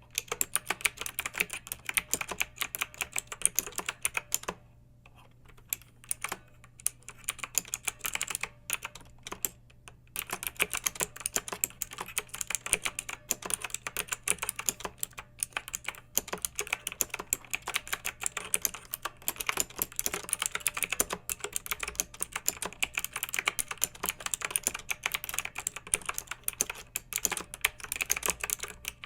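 Clicky mechanical keyboard being typed on in quick, irregular runs of keystrokes, with brief pauses about five seconds in and again near ten seconds.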